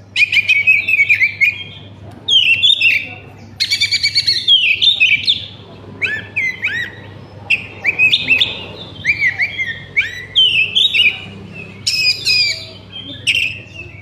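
Oriental magpie-robin (kacer) singing in the fast, jumbled 'konslet' style: bursts of varied chirps, whistles and trills, with short breaks between phrases.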